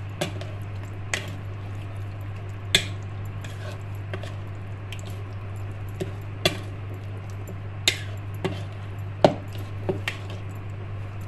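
A spoon stirring raw chicken through a thick yogurt-and-cream marinade on a plate: wet squishing with about a dozen irregular clicks of the spoon against the plate. A steady low hum runs underneath.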